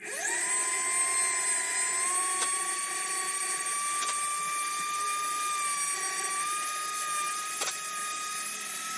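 Small high-speed rotary tool spinning up and running with a steady high whine that creeps slowly up in pitch, with a few light ticks as it touches the work.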